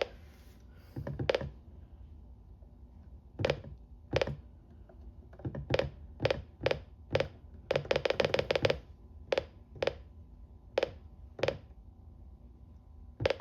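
Buttons on a weather radio being pressed one after another to set its date and time: sharp single clicks at an irregular pace, with a quick run of presses about eight seconds in.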